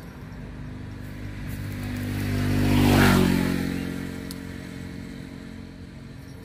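A motor vehicle driving past, its engine hum growing louder to a peak about three seconds in, then fading away.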